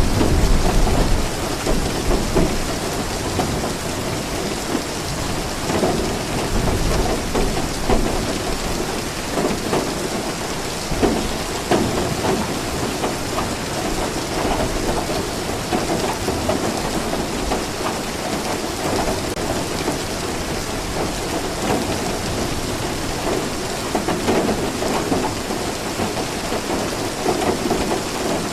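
Steady rainfall, with a low thunder rumble in the first couple of seconds.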